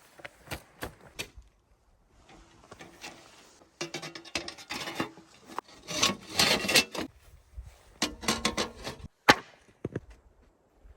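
Wood being handled: irregular rubbing and scraping, broken by sharp knocks, with the loudest single knock about nine seconds in.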